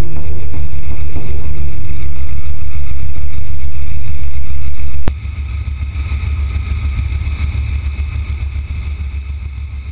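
Bell 47 G2 helicopter in flight heard from inside the cockpit: steady engine and rotor noise with a heavy low rumble. About halfway through the level drops sharply, and the noise then slowly fades out.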